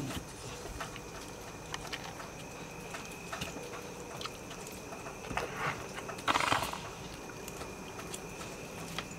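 Puppies shifting and nuzzling on a doormat: scattered light taps and clicks as they move, with two short breathy bursts of noise about five and a half and six and a half seconds in, the second the loudest.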